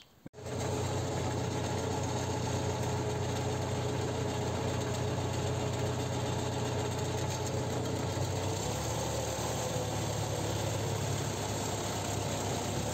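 Belarus MTZ-52 tractor's four-cylinder diesel engine idling steadily, its low note shifting slightly about two-thirds of the way through.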